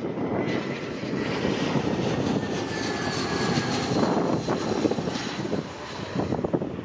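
Airbus A320-232's IAE V2500 turbofan engines passing low overhead on final approach: a broad jet rumble with a faint high whine that sags slightly in pitch as the aircraft goes by, easing off near the end.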